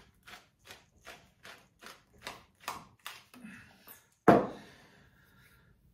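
Hand pepper mill grinding peppercorns: a rhythmic crunching of about two and a half twists a second, stopping about three seconds in. A single loud knock follows about four seconds in.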